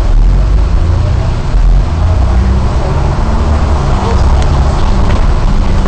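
Diesel engine of a non-air-conditioned double-decker bus running under way, heard from inside the bus, a loud steady drone whose pitch shifts slightly about two seconds in, over road noise from the wet road.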